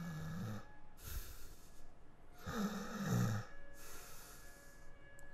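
Slow, heavy snoring: two rumbling snores about two and a half seconds apart, each followed by a hissing breath.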